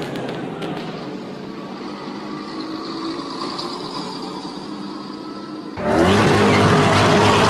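Steady road-traffic noise with a low engine hum. Near the end it gives way suddenly to a supercar's engine revving loudly under hard acceleration.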